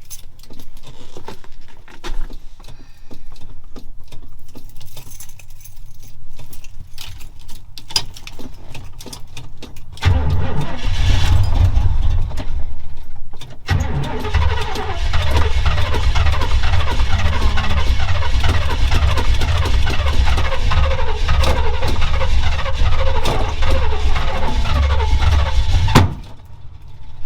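Old Chevrolet Camaro Z28 V8 being cranked over on its starter after some light clicks and rattles. It cranks in two long bouts, about ten seconds in and again from about fourteen seconds. The second bout ends near the end in a sudden sharp bang, and the sound cuts off.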